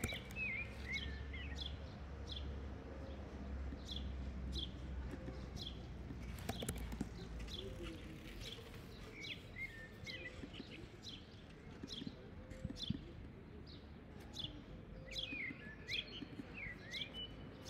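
Small birds chirping: short high chirps repeating about once or twice a second, with a few quick warbled phrases, over scattered clicks.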